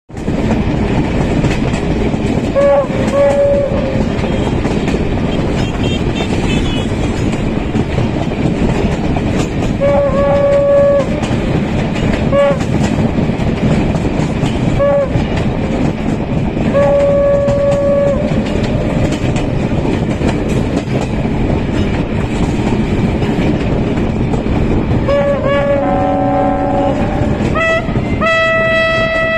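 Egyptian Railways passenger train running at speed, heard from an open carriage window: a loud steady rumble of wheels on rail. The horn sounds repeatedly in short and longer blasts, and a longer, different horn chord starts near the end.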